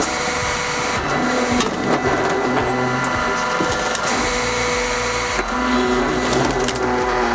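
Wood-processing machinery running under load, with wood cracking and crunching and sharp clicks throughout.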